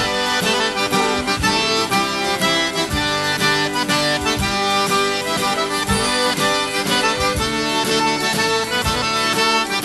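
Cajun music led by an accordion, with a steady beat.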